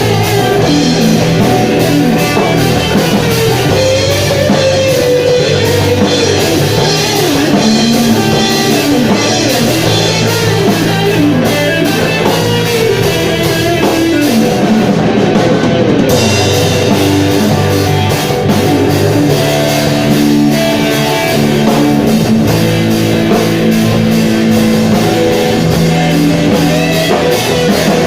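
A live rock band playing loudly: a drum kit, electric guitars and bass, with a melodic guitar or vocal line weaving over the beat.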